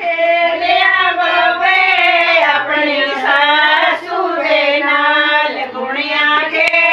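A high woman's voice singing a song in long, wavering held notes, with brief breaths about four seconds in and again near the end.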